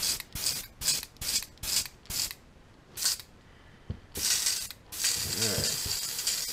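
An airbrush spraying paint in quick short hissing bursts, about three a second, then a couple of spaced bursts and a steady hiss of air from about five seconds in. The brush is clogging.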